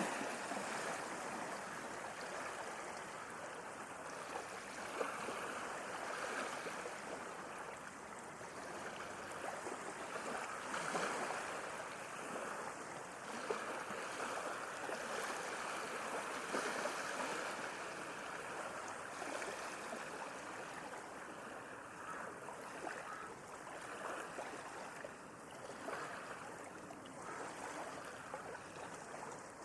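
Sea waves washing in a continuous rush of water that gently swells and eases in level.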